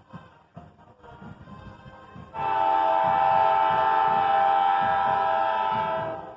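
Freight locomotive air horn sounding one long steady chord-like blast, starting about two and a half seconds in and lasting nearly four seconds.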